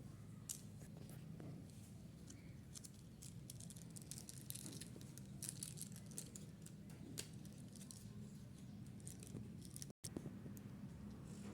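Faint crinkling, tearing and small clicks of candy wrapping and plastic packaging being handled, over a steady low hum; the sound drops out for an instant near the end.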